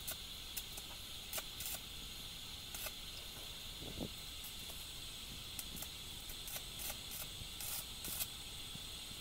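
Stick-welding arc from a small inverter welder hissing steadily as a joint in a steel tube frame is welded, with irregular sharp crackles and pops.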